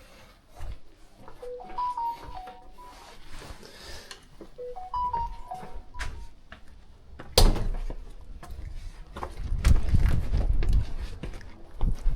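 A short electronic jingle of beeping tones, played twice about three seconds apart, then a sharp knock and a spell of loud low rattling and rumbling near the end.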